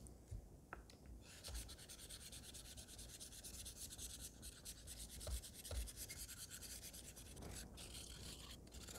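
Straight razor blade being honed back and forth on a wet, slurried Shapton 1000-grit whetstone: a faint, steady stroking rasp of steel on stone as the edge is set.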